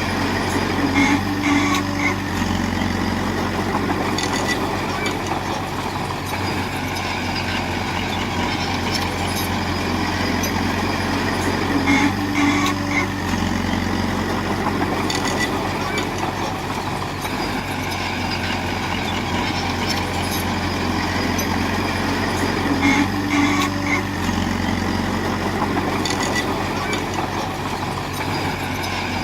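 Heavy diesel engine of earthmoving machinery running steadily under work. About every eleven seconds a brief higher tone sounds and the engine note shifts.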